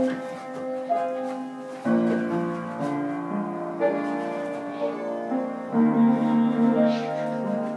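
Piano played live: slow, held chords, a new chord struck about every two seconds.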